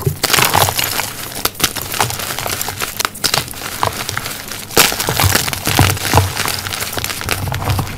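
White gym chalk blocks crushed and crumbled between the fingers: dense crunching and crackling, with sharper cracks as pieces break off, the loudest about five seconds in.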